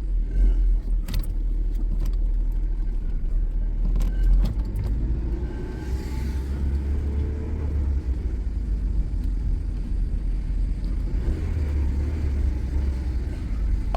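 Honda Civic engine with a knocking connecting rod, heard from inside the cabin as the car pulls away: a steady low rumble, with a rising engine note about five seconds in and a few sharp clicks in the first seconds.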